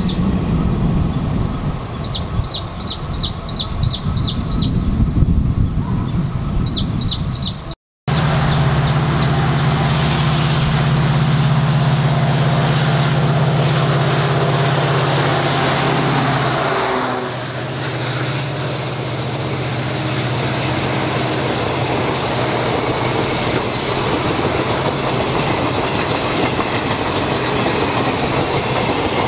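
Passenger train running past on the tracks, coaches rumbling with clickety-clack. After an edit cut about 8 seconds in, a steady low drone joins the running noise and eases off about 17 seconds in.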